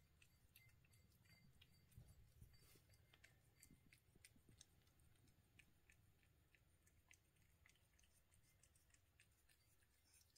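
Faint, irregular clicking of kittens chewing and eating food from their bowls.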